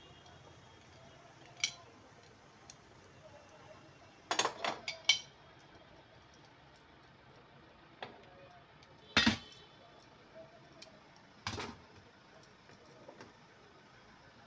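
Aluminium steamer pots clanking as the stacked tiers are lifted off the stove and set down. Scattered metal knocks and clatters, with a cluster about four to five seconds in and the loudest about nine seconds in.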